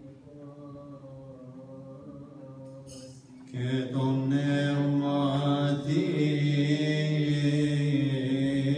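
Coptic Orthodox liturgical chant, a low male voice held on long notes. It is soft for the first few seconds and becomes much louder about three and a half seconds in.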